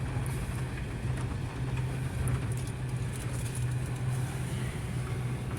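Truck engine running steadily, heard from inside the cab as a low, even drone.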